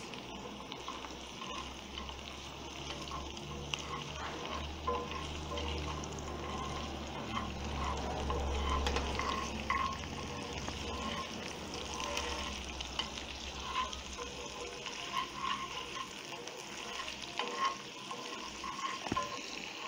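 Chopped onion, garlic and sweet pepper sizzling in oil in a frying pan, with a spatula scraping and stirring through them now and then. A low rumble swells and fades in the middle.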